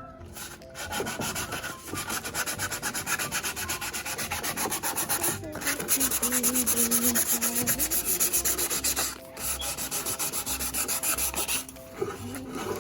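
Sandpaper scraping on a wooden birdhouse in fast, even back-and-forth strokes, stopping briefly a few times.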